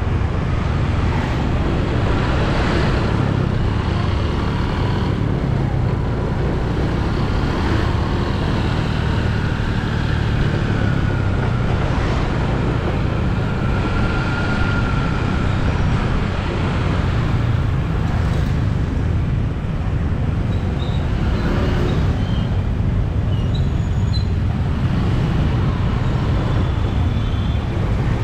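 Steady road-traffic noise of a busy city street, a continuous low rumble of passing vehicles with no pauses.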